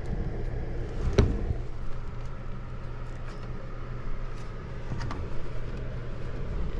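Steady low hum with two sharp clicks, about a second in and again near five seconds, as low-voltage wires are handled at an air handler's control board.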